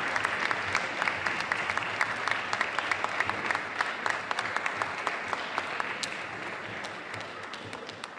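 An audience applauding, dense and steady at first, then thinning out and fading towards the end.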